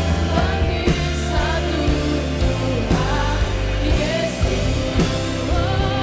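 Worship band music with a singer: a drum kit keeps a steady beat under a sung melody and sustained instruments.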